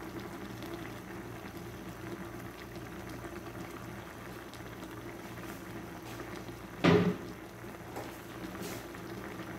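Soy-sauce liquid bubbling steadily as squid adobo simmers in a frying pan, over a low steady hum. A single short, loud knock about seven seconds in.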